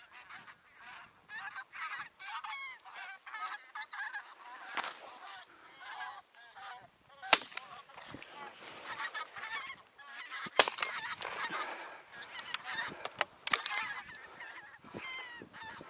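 A flock of wild geese honking overhead without a break. Two sharp, loud shotgun shots come about seven and ten and a half seconds in, some three seconds apart.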